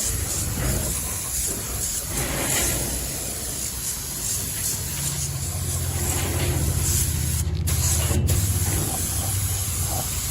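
Workshop machinery noise: a steady hiss with a low machine hum that sets in about five seconds in.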